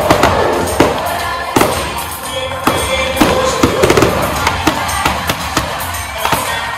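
Fireworks display: a rapid, irregular string of sharp bangs and crackles from bursting shells, with music playing underneath.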